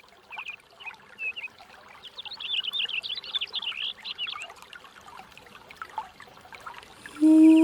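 Small birds chirping in quick runs of short high notes, busiest in the middle. Near the end a low, steady humming voice begins.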